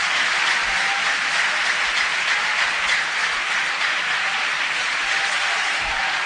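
Concert audience applauding, a dense, even clapping.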